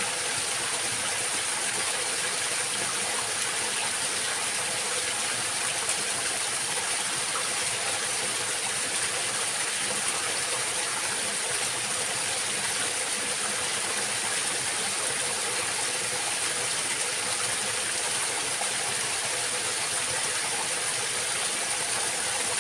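Steady rush of flowing stream water, unchanging throughout, with a continuous high-pitched hiss or whine held over it.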